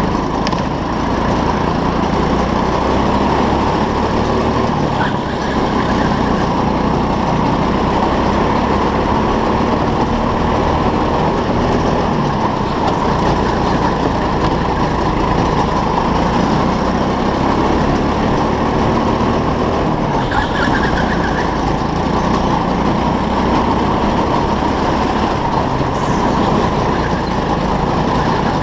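Go-kart running at speed around an indoor track, heard from onboard: a loud, steady motor noise without a break.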